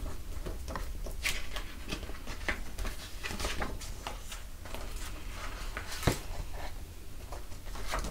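Pages of a printed paper pamphlet rustling and flapping as it is leafed through, in short irregular rustles with one sharper tap about six seconds in, over a faint low hum.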